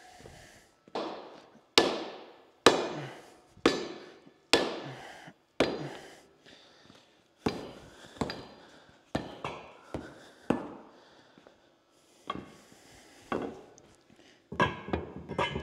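A heavy orange-headed sledgehammer striking over and over, roughly one blow a second, each blow ringing briefly, with a short pause about eleven seconds in before a few more blows.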